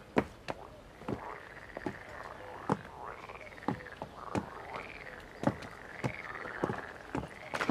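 Chorus of frogs croaking steadily, with a warbling, rising-and-falling call throughout. Sharp clicks and snaps sound irregularly over it, about one a second, and are the loudest sounds.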